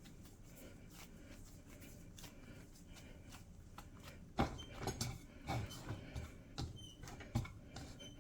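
Hands kneading a soft flour dough, with irregular soft thuds and squishes as it is pressed and turned, starting about halfway in.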